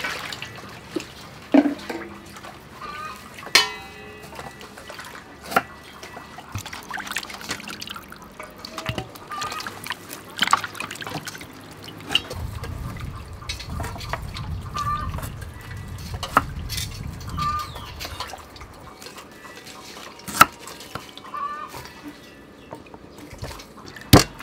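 Raw chicken wings being washed by hand in a metal bowl of water: sloshing, dripping and splashing, with occasional sharp clinks against the bowl.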